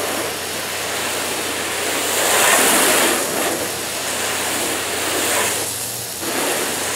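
Garden hose spray nozzle spraying water onto a car's hood, a steady hiss with water splattering on the paint as the panel is flooded. The spray dips briefly about six seconds in and then comes back.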